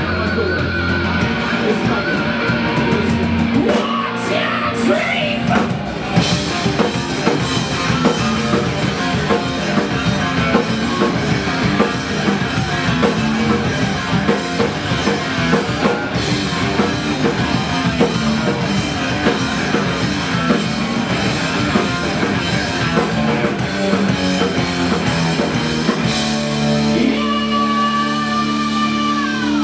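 Rock band playing live: electric guitars and drum kit with a singer. Near the end the playing settles into long held notes.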